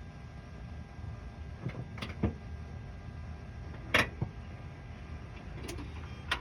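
A handful of short, sharp clicks and knocks at uneven intervals, the loudest about four seconds in, over a low steady rumble.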